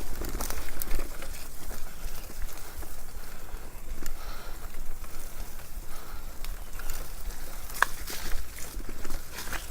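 Mountain bike rolling over a rough dirt trail, with scattered clicks and rattles from the bike, and wind rumbling on the microphone.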